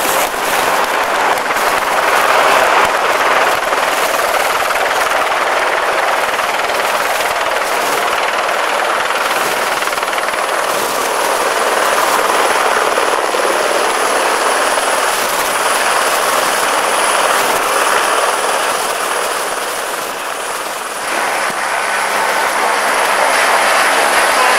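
Helicopter flying low over a torrent: the rotor and engine noise mix with the steady rush of fast white water. The sound drops briefly about twenty seconds in, then comes back.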